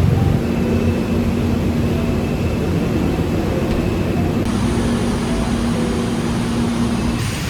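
Steady low rumble of a running vehicle, with a faint steady hum.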